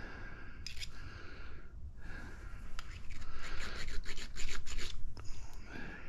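Small hand file scraping a magnetron cathode part in quick strokes: a short burst about half a second in, then a run of rapid strokes for about two seconds mid-way. It is a scratch test to tell copper from steel.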